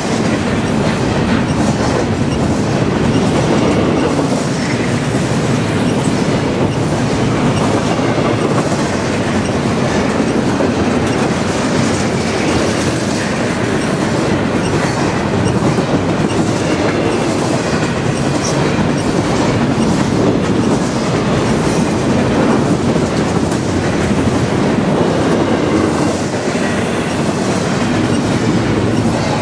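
Double-stack container cars of a freight train rolling past close by: loud, steady rumble and clatter of steel wheels running on the rails.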